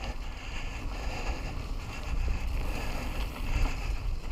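Mountain bike riding along a dirt trail, heard from a helmet-mounted action camera: steady wind rumble on the microphone mixed with tyre and trail noise.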